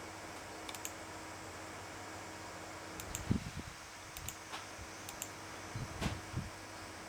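Steady room hiss with a faint constant hum, broken by a few scattered small clicks and soft low thumps, the loudest a thump about three seconds in.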